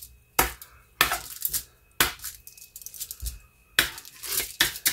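Metal kitchen tongs clicking and a sheet of aluminium foil crinkling under a pork chop, in about six short, sharp bursts with quiet gaps between.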